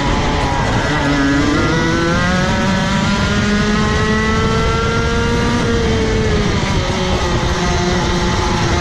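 Onboard sound of a Rotax Max Evo 125 cc two-stroke kart engine at full throttle, its pitch climbing steadily for about five seconds as the kart gathers speed, then falling back as the driver lifts off, over steady wind and road noise.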